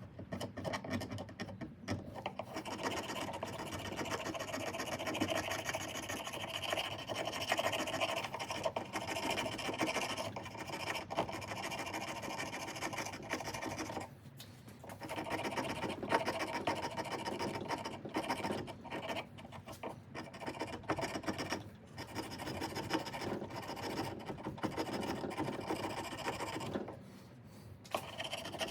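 Continuous hand scraping or filing against a ratchet handle, taking off what is left of its soft grip material. It breaks off briefly about halfway through and again near the end.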